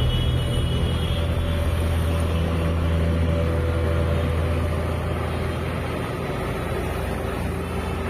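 Steady low rumble of engine and tyres heard from aboard a vehicle moving through city traffic.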